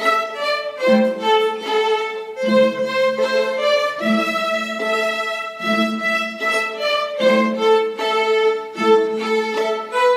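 String orchestra playing a simple piece: a bowed minor-key melody over a low note repeated in a steady pulse.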